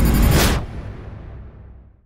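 Logo intro sound effect: a loud low rumble under music ends in a whoosh about half a second in, then fades away over the next second and a half.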